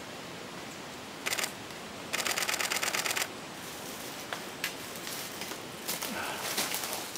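Camera shutter firing in a rapid burst, about ten clicks a second for just over a second, after a shorter cluster of clicks a moment before.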